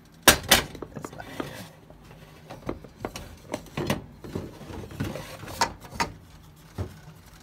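Kitchen handling noise: two sharp clicks in the first half-second, then scattered knocks and clicks as a wooden salt box with a swivel lid is handled and its lid swung open.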